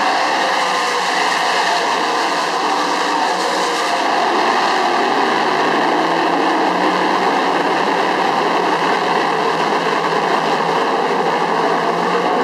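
A field of big-block dirt modified race cars at speed, their V8 engines blending into one loud, steady drone, with single engine notes wavering up and down as the cars go through the turns.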